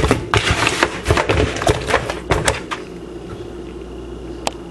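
A quick string of knocks, clicks and rustles as hands rub and move raw tilapia around in a plastic basin, stopping about two and a half seconds in, with one more click near the end.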